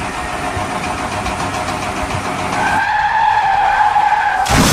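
A car sound: a steady rushing noise, joined about three seconds in by a held high squeal like tyres skidding, ending in a loud burst of noise.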